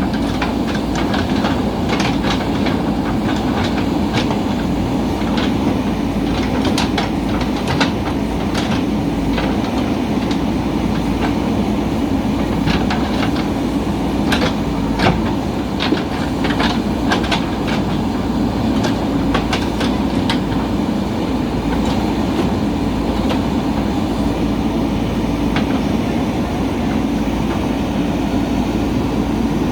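JCB backhoe loader's diesel engine running steadily under working load, with frequent sharp clanks and rattles from the machine and its bucket working the ground, thinning out in the last third.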